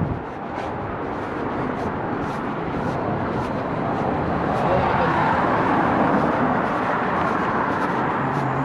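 Motor vehicle running in the lane, engine and tyre noise swelling to its loudest a little past the middle and then easing, with light irregular clicks throughout.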